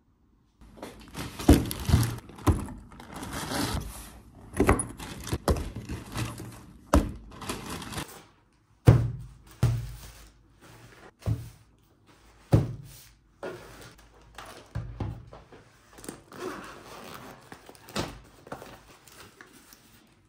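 Plastic packaging and bags rustling as items are handled, with a series of irregular thunks and clatters as things are taken out and set down on a tabletop.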